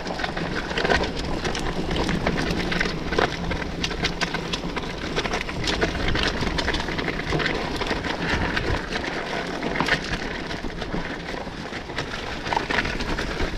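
Mountain bike rolling down a wet, muddy dirt trail: tyre noise with a continual rattle and clatter of many small knocks as the bike rides over roots and stones.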